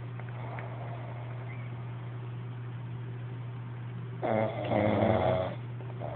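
A person snoring in sleep: a few seconds of quiet breathing, then one loud, rattling snore in two pulls about four seconds in.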